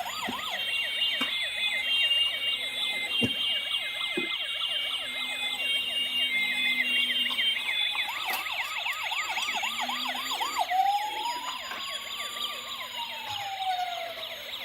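Electronic sirens of several battery-powered toy emergency vehicles sounding at once: overlapping fast warbling wails, with a slower single rise-and-fall wail late on and a few light knocks.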